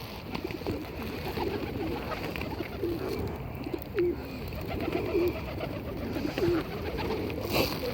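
Pigeons cooing, a string of low coos one after another, with a short noisy knock near the end.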